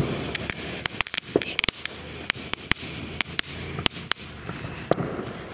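A small consumer flashing fountain firework burning: a hiss of sparks broken by sharp, irregular pops and crackles, which thin out over the last second or so as it dies down.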